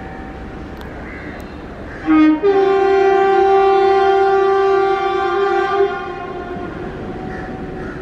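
WAP4 electric locomotive sounding its horn: a short blip about two seconds in, then one long steady blast of about three and a half seconds.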